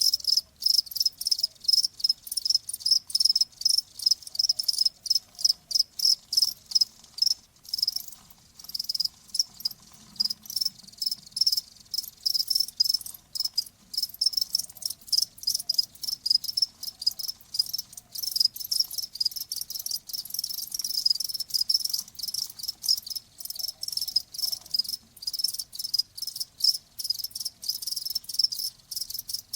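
Crickets chirping in a fast, steady run of high-pitched chirps.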